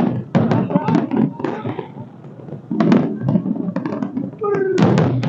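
Fireworks going off in a rapid, irregular series of sharp bangs and crackles over crowd voices.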